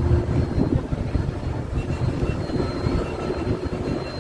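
Moving bus heard from inside the cabin: a steady, low rumble of engine and road noise.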